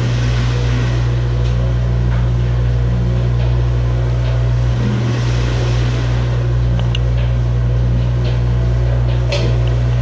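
Commercial dish machine running its wash cycle: a loud, steady low hum.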